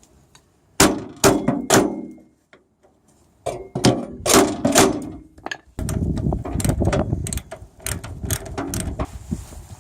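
Hammer blows pounding on wheelbarrow axle bolts whose nuts have sunk into the wooden handles: three sharp blows about a second in, a quick group around four to five seconds, then a stretch of denser knocking and rattling from about six seconds.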